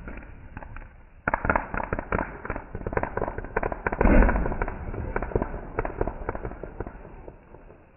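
Fireworks going off: a dense run of rapid crackling pops starting about a second in, with a louder burst about four seconds in, dying away near the end.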